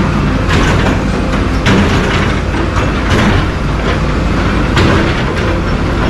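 Hydraulic excavator's diesel engine running under a steady low rumble while it breaks up a demolished house, with several sharp crashes of concrete debris about a second or more apart.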